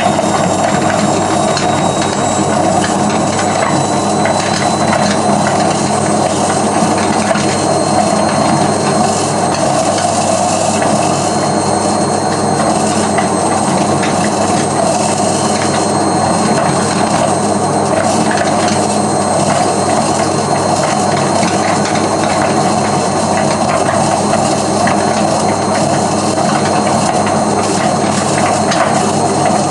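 Hotpoint Aquarius WMF520P washing machine running with a loud, steady mechanical rumble and a thin high whine over it. The noise is that of a machine with a failing drum spider.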